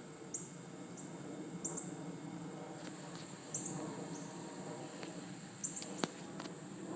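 Steady high-pitched insect buzz, with short high chirps every second or two and a few faint clicks.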